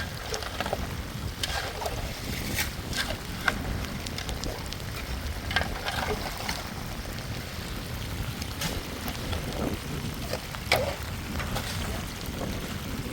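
Heavy rain falling, with wind rumbling on the microphone and scattered sharp taps of drops striking nearby surfaces.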